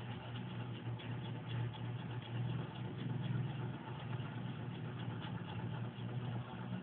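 A steady low hum, level throughout.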